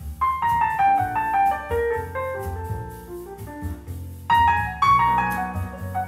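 Piano-led instrumental passage of a ballad played back through a pair of customized Yamaha NS-1000 loudspeakers, with a run of falling notes at the start and another about four seconds in, over a steady bass line.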